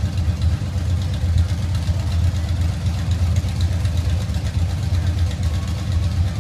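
Large vehicle engine idling steadily at close range: a deep, rough low rumble that holds an even pitch, with no revving.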